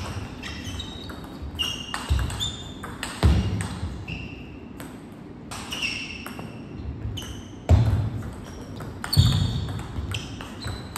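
Table tennis rally: the celluloid-plastic ball clicking off the bats and bouncing on the table in quick succession, each contact a short bright ping, echoing in a large hall. Several heavy low thuds are mixed in, the loudest about eight and nine seconds in.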